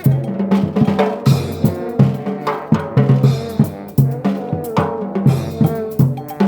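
Trombone band with drums playing a tune: held horn notes over a steady snare and bass drum beat, about two hits a second.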